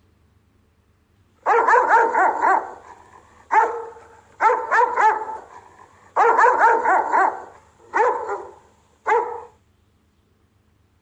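Rottweiler guard barking, starting about a second and a half in, in quick volleys of several barks each with short gaps between, ending with two single barks near the end.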